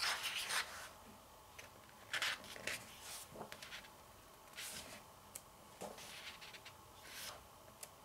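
Pages of a paperback photobook being turned by hand: a series of short paper swishes and rustles, about half a dozen in all.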